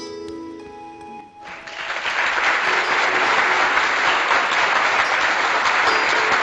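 Opening of a karaoke backing track: a few soft sustained notes, then about a second and a half in a loud wash of applause-like noise comes in over the music and holds.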